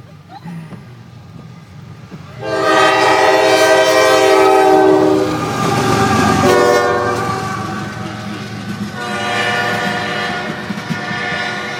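A locomotive's multi-chime air horn blowing: a long blast of about three seconds, a short blast, then another long blast, all loud. Beneath it runs the low rumble of the passing train.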